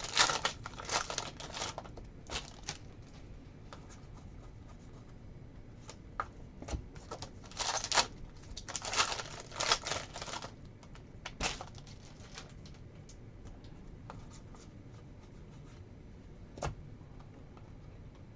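Sports trading cards being flipped and slid against one another by hand, with crinkling of the pack wrappers: clusters of quick clicks and rustles in the first couple of seconds and again in the middle, and a single click near the end.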